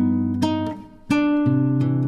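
Background music: acoustic guitar picking single notes and chords, with a brief lull about halfway through.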